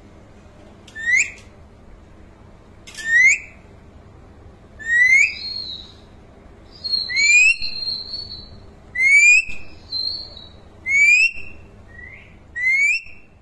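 Alexandrine parakeet whistling: a short rising whistle repeated about every two seconds, seven times, with a few longer, steady, higher-pitched whistles between them.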